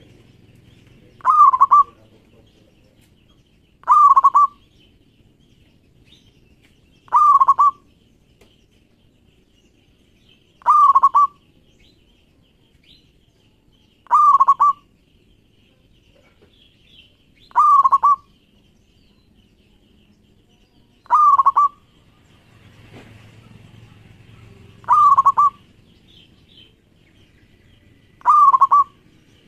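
Zebra dove (perkutut) cooing: nine short calls, each about half a second long, repeated evenly about every three and a half seconds.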